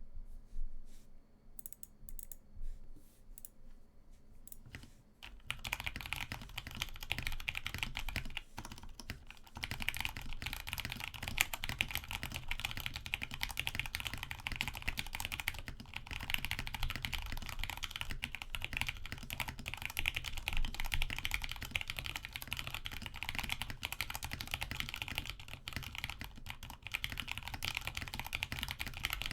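Modded RK61 mechanical keyboard being typed on; it has Cherry MX Brown switches lubed with Tribosys 3203, PE foam and tape inside, and a gummy o-ring mount. A few scattered keystrokes come first, then fast continuous typing starts about five seconds in, with a short break near eight and a half seconds.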